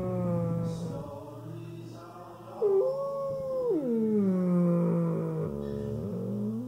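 A dog howling in its sleep: a long, drawn-out howl that holds a note, jumps up in pitch, then slides down and holds a lower note.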